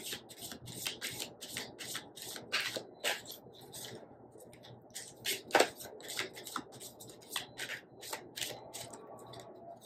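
A deck of tarot cards shuffled by hand: a quick run of papery card slaps that thins out in the second half, while the reader draws a card to clarify the King of Cups.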